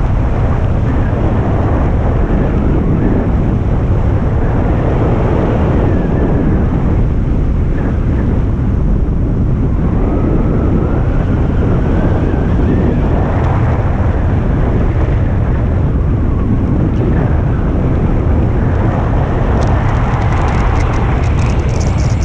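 Wind rushing over the camera microphone while paragliding in flight: a loud, steady, rumbling buffet, with a light crackle near the end.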